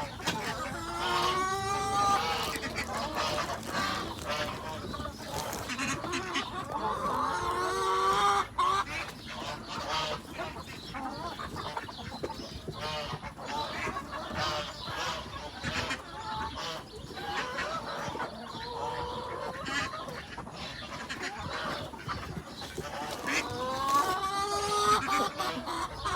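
A flock of chickens clucking and calling as they eat tortilla pieces, with several louder bouts of pitched squawking, one near the start, one about eight seconds in and one near the end.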